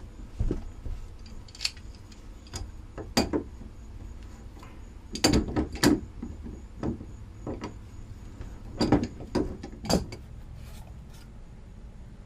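Irregular knocks, clicks and clatter of things being handled, loudest in two clusters about five and nine seconds in, over a low steady hum.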